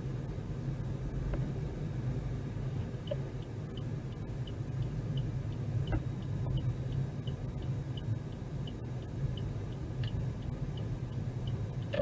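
Car engine and road rumble heard from inside the cabin, with a turn signal ticking about three times a second from about three seconds in as the car turns at a junction.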